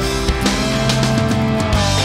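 Background rock music with guitar. A held note comes in about half a second in and bends down in pitch near the end.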